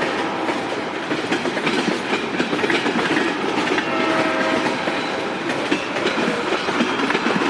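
Freight train cars rolling past, with steady wheel-on-rail rumble and clickety-clack over the rail joints, and a brief steady tone about four seconds in.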